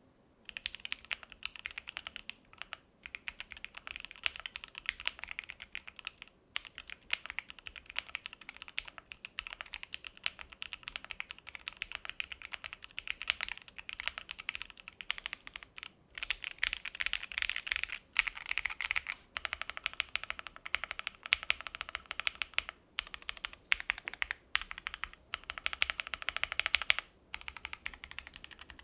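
Typing on a Noir Z1 custom mechanical keyboard, a gasket-mounted board in a CNC aluminium case: runs of fast keystroke clacks broken by several short pauses.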